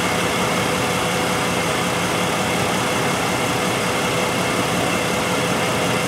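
The 2005 Jeep Liberty's 3.7-litre V6 idling steadily while misfiring on cylinders 4 and 6. The misfires come from shorted secondary windings in those two cylinders' ignition coils.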